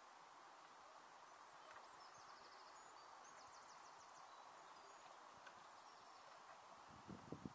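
Near silence outdoors: faint steady background noise with faint high bird trills in the first few seconds, and a few soft knocks near the end.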